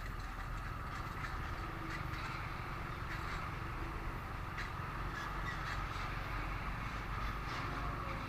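Motorcycle engine running steadily in slow traffic, with road and traffic noise and a constant high buzzing drone.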